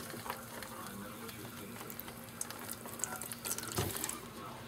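Hot roasting-pan juices pouring in a thin stream into a ceramic bowl, with a few small ticks and a soft knock near the end.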